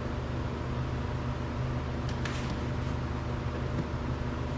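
Steady low mechanical hum, like a fan or running motor, with a faint brief scrape about two seconds in.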